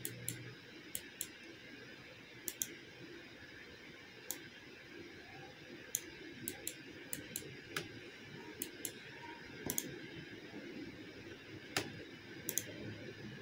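Computer mouse clicking: a scattered series of sharp clicks, several in quick pairs, over faint room noise.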